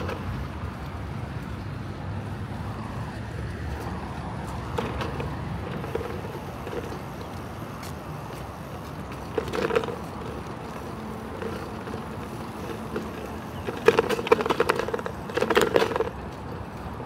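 Bicycle rolling along an asphalt path: a steady low rumble from the tyres, with three short bursts of rattling from the bike as it goes over rough patches and painted markings, once around the middle and twice near the end.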